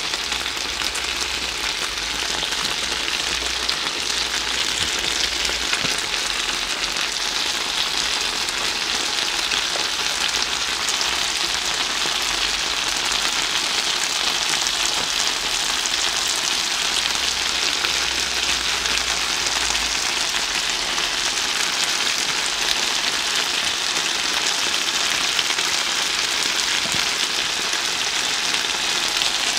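Spicy stir-fried pork and vegetables sizzling steadily on a hot grill plate.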